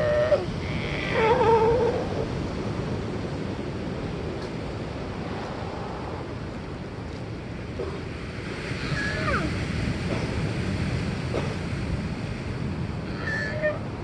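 Steady wash of ocean surf with sea lions barking over it. One loud bark comes about a second in, with fainter calls around nine seconds and near the end.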